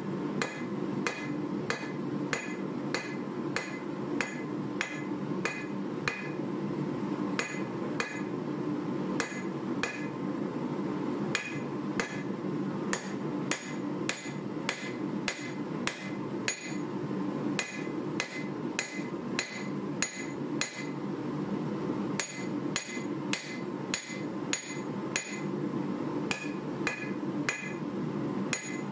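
Hand hammer forging a red-hot 1095 carbon-steel knife blade on an anvil: steady blows, about two a second with a few short pauses, each with a bright metallic anvil ring. A steady low rumble runs underneath.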